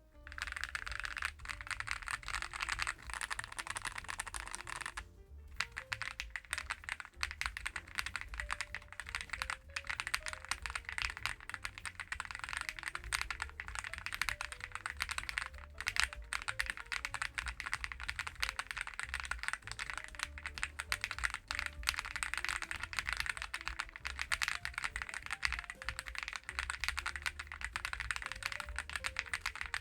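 Fast, continuous typing on a Reborn67 mechanical keyboard, its keys clacking, with a brief pause about five seconds in. Soft background music plays underneath.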